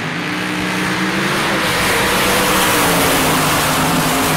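Drag racing car engine running loud, getting louder over the first two seconds, its engine note holding steady and then sagging slightly.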